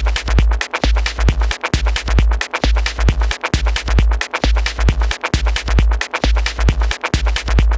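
Electronic dance music with a heavy, steady bass beat and busy percussion.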